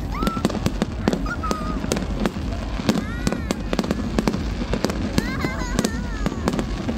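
Fireworks crackling and popping: a dense, irregular run of sharp reports from many small bursting stars, several a second.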